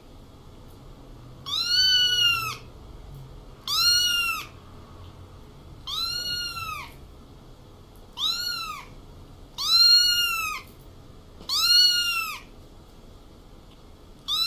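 A kitten meowing over and over: six high-pitched meows about two seconds apart, each rising and then falling in pitch, with another starting at the very end.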